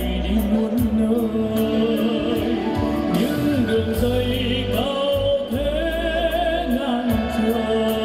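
A male singer performing a Vietnamese song over backing music with a steady beat.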